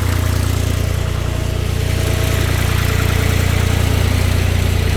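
Long 350 tractor's three-cylinder diesel engine running steadily, still cold from a cold start.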